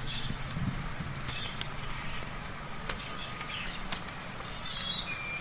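Steady rain with scattered sharp drip ticks, and birds giving short chirps every second or so. A low steady hum runs underneath.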